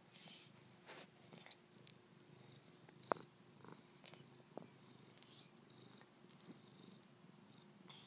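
A baby animal hiccupping: a few short, sharp hiccups spaced a second or two apart, the loudest about three seconds in, over a quiet background.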